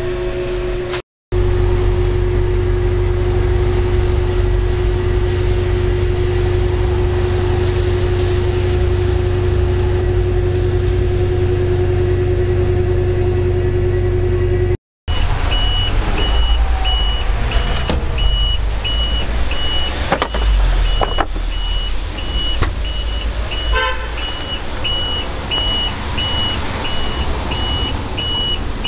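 A steady machine hum with a constant mid-pitched tone. After a cut, a high electronic beep repeats about once a second over low rumble and scattered clicks.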